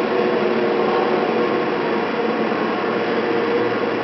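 Steady hum and whir of the cable car engine house machinery driving the moving haul cables, with several steady tones held throughout.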